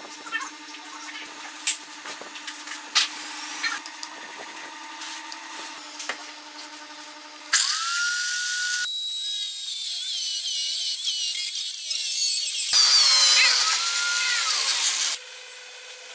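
A drill mounted in a stand starts up and bores into a wooden block, a hole for a dowel to pin a crack. It is loud, with a whining, wavering tone, and stops suddenly near the end. Before it, a few light knocks and clicks come from handling the wood over a faint steady hum.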